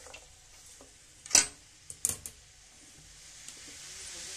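A metal ladle clinks against a metal pan while vegetables are stirred: one sharp clink about a second and a half in, and two lighter ones around two seconds. A faint sizzle of the vegetables frying in oil grows louder toward the end.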